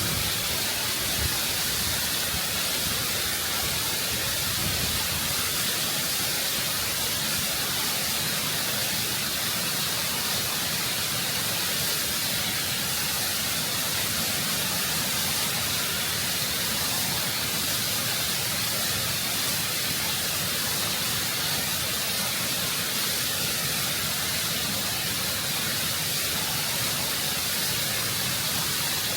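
Waterfall water rushing and cascading over rock close up: a constant, full hiss of falling water without a break.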